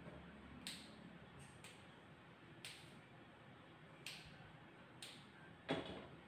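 Grooming scissors snipping dog fur: a few faint, sharp clicks at irregular intervals about a second apart, with a louder click near the end.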